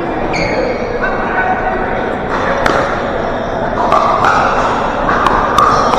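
Pickleball paddles popping against plastic balls: a sharp hit near the middle and a few more in the second half, over the chatter of players in a gym hall.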